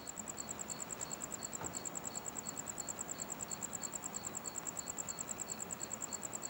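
Insects chirping, typical of crickets: a high, steady trill of rapid even pulses, about seven or eight a second, with a second, slower chirp lower down, over a faint even background noise.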